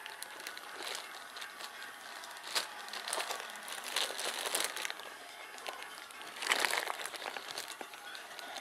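Clear plastic packaging crinkling and rustling as hands pull and handle it, unevenly, with louder crackles a little before the middle and again about three-quarters through.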